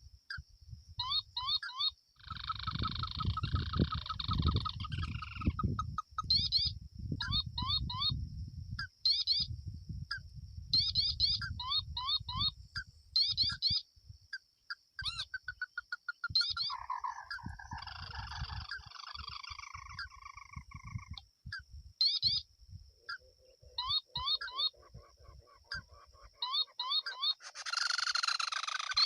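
Small animals calling in a rice paddy: short chirping calls repeated over and over over a steady high whine, with wind rumbling on the microphone through the first half. Near the end a louder, dense hiss comes in.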